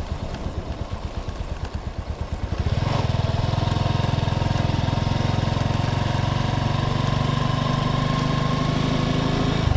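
A vehicle engine running at a low, pulsing idle, then picking up to a louder, steadier, higher-revving note about three seconds in, which it holds.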